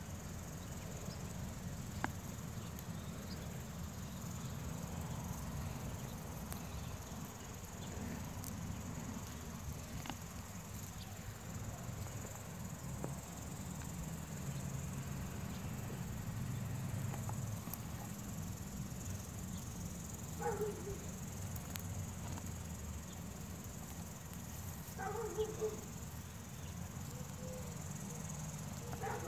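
Crickets chirping steadily in the background, with soft rustling and scraping of soil and leafy tops as carrots are pulled up by hand.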